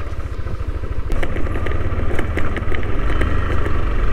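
Yamaha Aerox 155 scooter being ridden, its engine running under a steady low wind rumble on the microphone, with a run of light clicks and rattles from about a second in.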